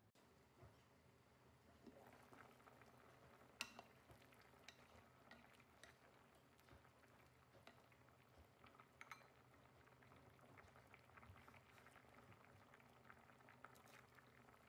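A pot of kimchi stew bubbling at a boil, faint, with many small irregular pops and a few sharper clicks.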